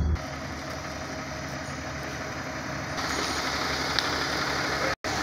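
Large vehicle engines idling steadily, with a sharp click about four seconds in and a brief dropout of all sound near the end.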